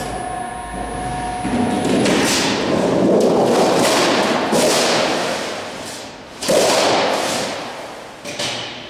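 A large, thin 24-gauge sheet-metal panel being lifted and flexed by hand, giving a rumbling, wobbling noise, with a sudden loud thump about six and a half seconds in. Near the start, the folding machine's steady hum fades out.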